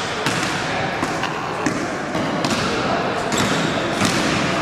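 Basketballs bouncing on a hardwood-style gym floor, irregular thuds echoing in the hall, with voices around.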